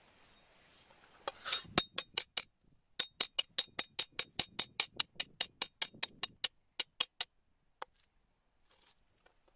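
Cleaver chopping lemongrass on a thick round wooden chopping block: a fast run of sharp knocks, about six a second, a brief pause after the first four, then one last single knock near the end.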